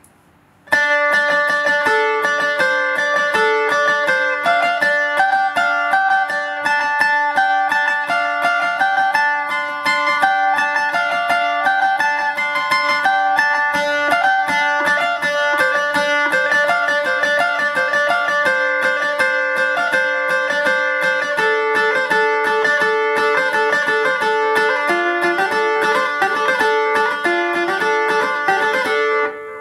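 Two-string Isan phin played solo: a fast picked melody over a steady drone string, starting about a second in and stopping just before the end.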